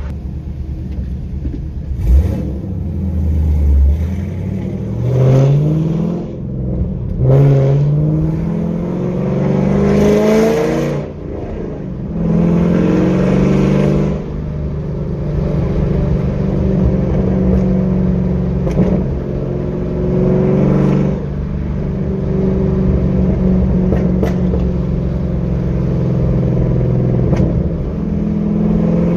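Camaro SS V8 with aftermarket headers accelerating hard through the gears. The engine note rises three times and drops back at each upshift, then settles into a steady cruise.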